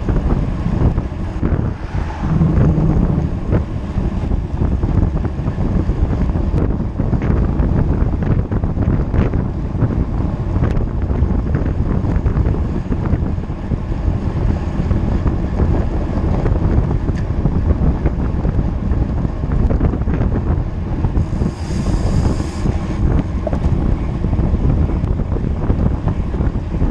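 Wind buffeting the microphone of a camera on a moving road bike, a steady low rumble of air noise at riding speed with scattered small knocks. A short higher hiss comes about 21 seconds in.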